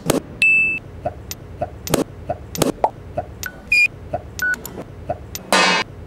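Faint ticking, about three clicks a second, with a few short electronic beeps at different pitches between them, and a louder rushing burst near the end.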